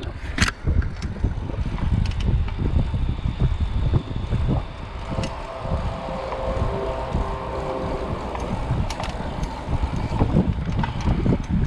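Wind buffeting the microphone of a chest-mounted camera on a bicycle riding into a headwind, a steady low rumble with a few scattered clicks. A faint humming tone comes in for a few seconds around the middle.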